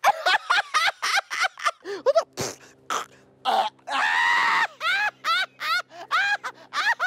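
A man laughing hysterically in rapid, high-pitched bursts, several a second, each rising and falling in pitch, with a longer drawn-out cry about four seconds in.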